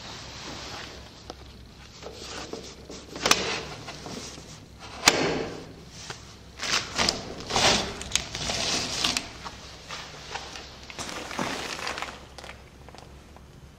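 Irregular knocks and clatter: a sharp knock about three seconds in, the loudest about five seconds in, then a busy run of short knocks and rustling that dies down near the end.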